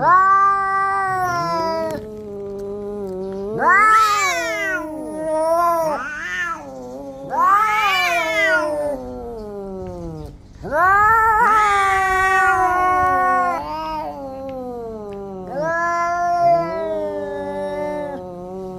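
Two domestic cats caterwauling at each other in a face-off: a run of long, wavering yowls that rise and fall in pitch, one after another with short pauses. These are the threat yowls of a territorial standoff between the cats.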